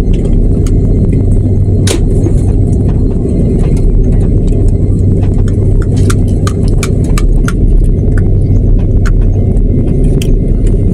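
Airliner cabin noise during taxi: a loud, steady low rumble from the jet engines and the rolling airframe, with irregular clicks and rattles throughout.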